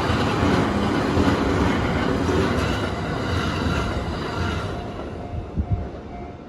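Electric commuter train rolling past over a level crossing, wheels clattering on the rails; the noise fades as the last car goes by about four and a half seconds in, with two low thumps near the end. As it fades, the crossing's warning bell is heard pulsing about twice a second.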